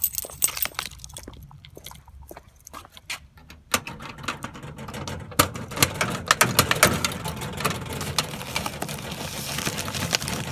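Handling noise from a handheld phone camera being carried while walking: scattered clicks and knocks, joined by a steady rustling hiss from about four seconds in.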